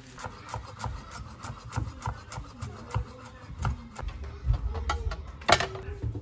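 Chef's knife chopping fresh parsley on an end-grain wooden cutting board: a quick, even run of chops, about four or five a second. A louder knock comes near the end.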